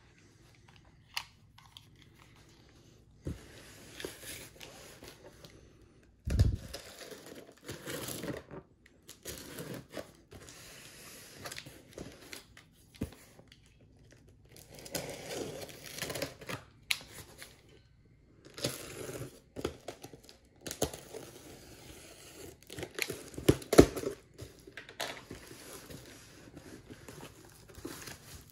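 Box cutter slicing through packing tape on a cardboard shipping box, and the cardboard flaps being handled and pulled open, in irregular scraping, tearing and crinkling stretches with sharp clicks. A dull thump about six seconds in.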